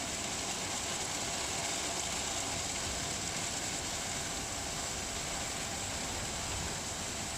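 Automatic tunnel car wash machine running, a steady rushing noise with a faint steady hum.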